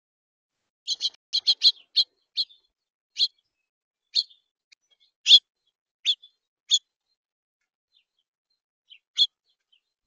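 Small songbirds chirping: a quick run of short, sharp chirps about a second in, then single chirps about a second apart, with a last one near the end.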